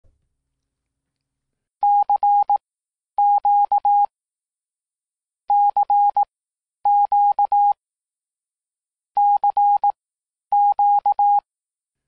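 Morse code sent as a single steady beep tone, spelling out 'CQ' three times in long and short beeps: the radio operator's general call to any station listening.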